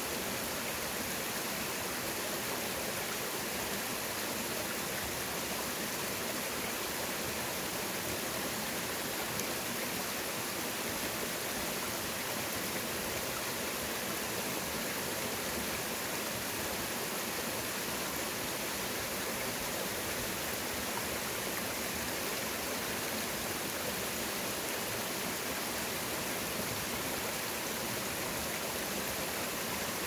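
A shallow, rocky mountain stream running over boulders and small cascades: a steady rush of water.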